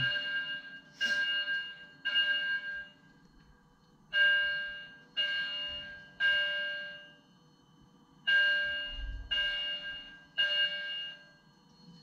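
Building smoke/fire alarm sounding a ringing, chime-like tone in groups of three pulses with a short pause between groups: the temporal-three evacuation signal. It is a false alarm, which the uploader puts down to smoke from a forest fire getting into the building.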